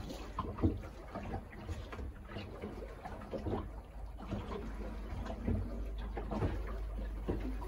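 Sea water lapping and slapping against a small boat's hull in irregular soft splashes and knocks, over a steady low rumble.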